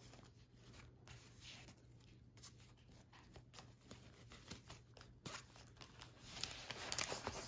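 Faint rustling and small crackling clicks of a rolled diamond painting canvas and its paper wrap being handled and turned over, getting louder near the end as it starts to be unrolled.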